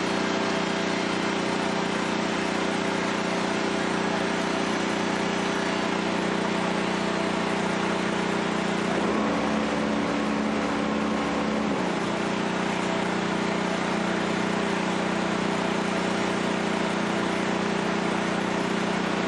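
A 13 HP Honda engine running steadily on wood gas from a gasifier, driving a generator. About nine seconds in, its sound changes for about three seconds, with a deeper tone added, then settles back.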